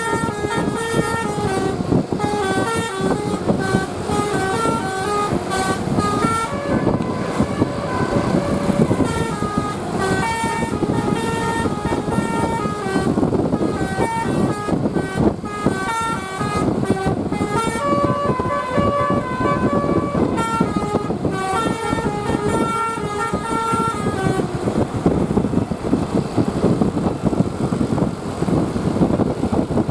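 A bus's basuri horn, a multi-trumpet air horn, playing a tune of stepped notes over steady engine noise; the tune stops about six seconds before the end while the engine noise carries on.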